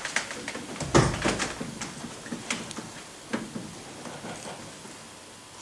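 Footsteps and knocks on a wooden stage floor as a person moves and sits down, with a heavy thump about a second in and a few lighter knocks after, trailing off into quiet room tone.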